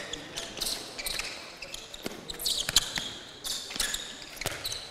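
Handball being bounced and passed during play: irregular sharp slaps of the ball on the floor and into players' hands.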